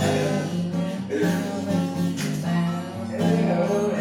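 Guitar playing an instrumental passage of a song, plucked notes and chords.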